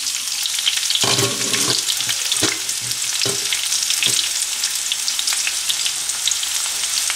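Chopped onions sizzling and crackling in hot oil with tempered mustard seeds, dry chillies and curry leaves, at the start of sautéing. A spatula stirs and scrapes the pan about a second in, then strikes it a few times.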